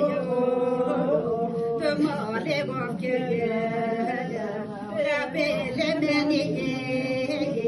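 A woman singing a funeral lament unaccompanied, in long held notes that waver and bend, with short breaths between phrases.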